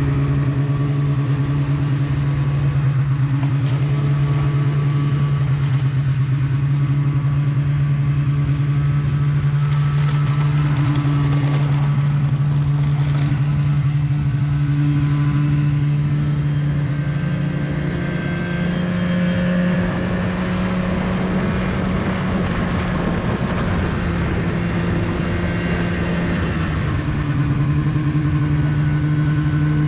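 Snowmobile engine running steadily at cruising speed while riding a trail. Its pitch climbs slightly a bit past the middle and settles back down near the end.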